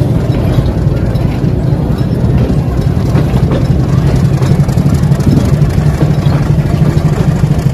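Diesel passenger train idling at a standstill: a steady low engine rumble.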